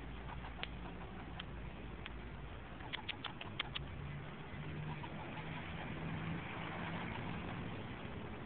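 A squirrel barking in short, sharp chucks: a few single ones about a second apart, then a quick run of about six in under a second. A low steady hum runs underneath.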